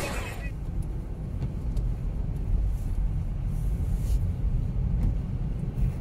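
Low, steady rumble of wind buffeting the microphone in a snowstorm.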